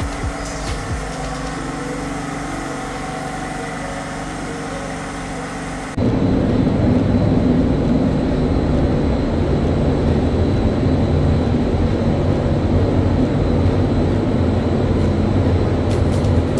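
Background music, then about six seconds in a sudden cut to a louder, steady, low mechanical rumble.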